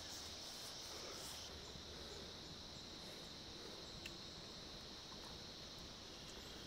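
Faint, steady high-pitched insect chorus, with a single sharp tick about four seconds in.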